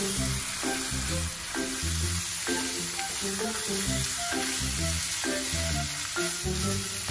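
Sliced beef and minced garlic sizzling steadily in a hot pan while a spatula stirs and turns them. Background music plays along with it.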